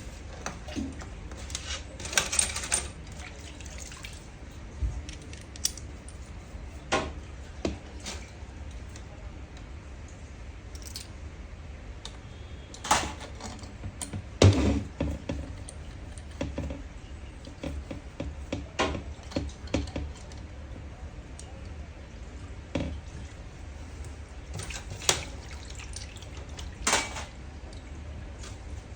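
Small metal parts and tools clinking and knocking at irregular intervals as they are handled, over a steady low hum.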